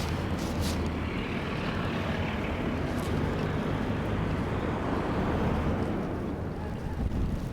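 Steady low rumble of a vehicle engine under a dense, even hiss of street noise, easing off near the end.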